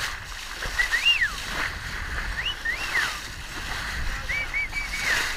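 Someone whistling in rising-and-falling glides, three times, then a quick run of short repeated whistle notes near the end, over steady wind and water rush from a sailboat under way.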